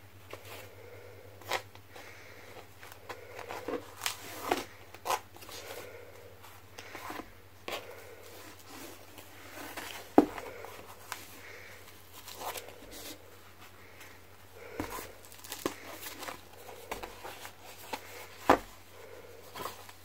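Hands handling lace fabric and a paper journal on a cutting mat: soft irregular rustling with scattered light taps, and two sharper knocks, one about halfway through and one near the end.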